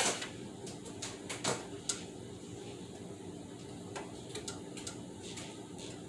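Clatter of handling things at a kitchen sink while meat is being rinsed: a sharp knock at the start, then scattered light clicks and taps, over a steady low hum.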